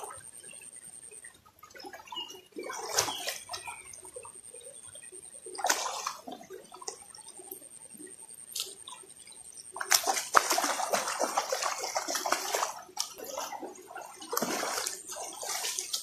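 Water splashing in a shallow river as a person lying in it kicks and moves her arms and legs, in several short bursts, the longest and loudest about ten seconds in lasting some three seconds, over the steady rush of the flowing stream.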